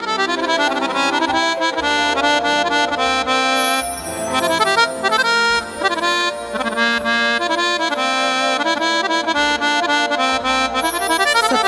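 Instrumental music: a harmonium plays a melody in quick steady notes over drum strokes.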